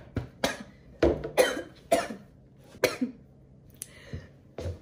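A woman's coughing fit: a run of about eight sharp, hacking coughs in quick succession, with a short pause in the middle.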